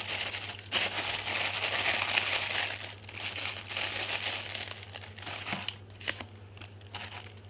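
Thin clear plastic bag crinkling as hands work a pair of sunglasses out of it. It is loudest over the first three seconds, then goes on as quieter rustles and small clicks.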